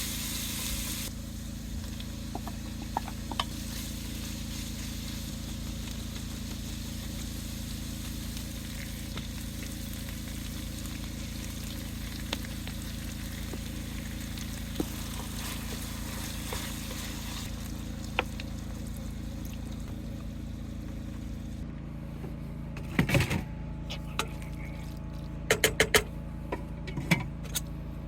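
Food frying in a pan with a faint sizzle over a steady low hum. About three-quarters of the way in the sizzle drops away, and a few sharp clicks and knocks follow near the end.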